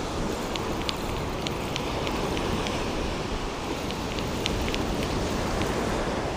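Steady rush of ocean surf and wind on a beach, with scattered faint light ticks.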